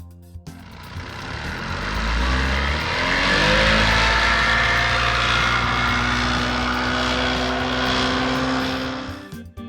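Speedboat engine running. It swells in and rises in pitch over the first few seconds, holds at high revs, then fades out near the end.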